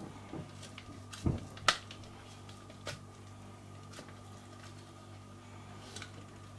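A few scattered light knocks and clicks of a spatula and plastic blender jar as a chopped onion and breadcrumb mixture is scraped out onto minced beef, with a low thump about a second in and the sharpest click shortly after. A faint steady hum lies underneath.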